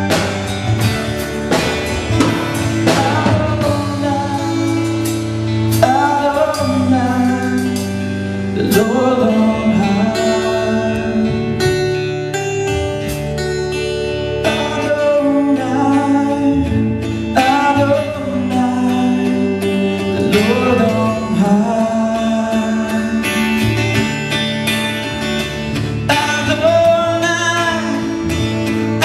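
Live worship band playing a contemporary Christian song: drum kit and bass guitar under guitar, with a melodic lead line that bends and holds notes over them.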